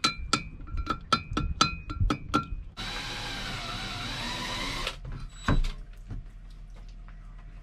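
A quick run of ringing metal clinks, then a power drill running steadily for about two seconds, drilling through a boat propeller's hub bush, followed by a single knock.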